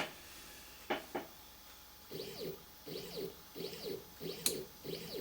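Nema17 stepper motor turning the Emco Compact 5 lathe's tool turret in short repeated moves. Each move is a brief whine that rises and falls in pitch, coming about every 0.7 s from around two seconds in. Before that come a few sharp clicks, and there is another sharp click near the end.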